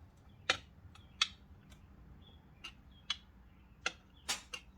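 Irregular light clicks and ticks of a hand screwdriver and small screws being worked into a part, about eight in all, the two loudest within the first second and a half.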